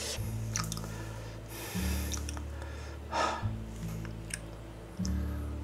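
Background music with a slow, low chord pattern that changes every second and a half or so. Two short, sharp breaths through the mouth come over it, about one and a half seconds in and again about three seconds in.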